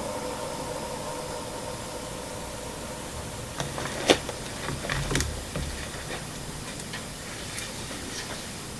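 Steady hiss of spirit box radio static, with a few faint clicks partway through.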